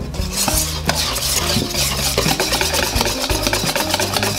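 Wire whisk beating pancake batter in a stainless steel bowl: fast, vigorous strokes with rapid clicking and scraping of the wires against the metal.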